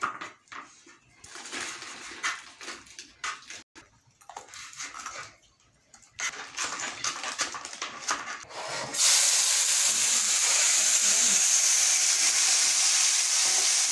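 A knife chopping tomato on a cutting board, a run of light irregular taps. About nine seconds in, a loud, steady sizzle starts as food hits hot oil in a wok.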